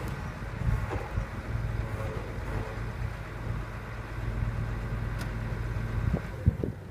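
Hitachi EX270LC excavator's diesel engine running steadily with a low hum, followed by a few knocks near the end.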